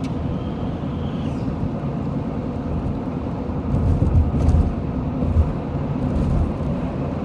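Steady road and engine noise heard from inside a moving car, with a few louder low thuds about four seconds in.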